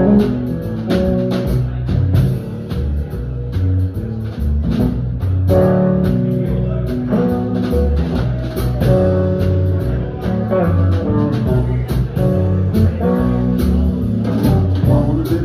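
Live band playing an instrumental passage: guitar over an electric bass line, with a drum kit keeping a steady beat on drums and cymbals.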